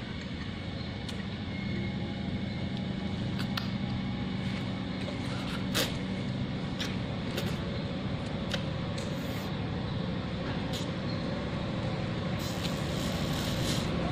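A steady low rumble of background noise, with scattered small clicks and taps over it; it grows a little louder near the end.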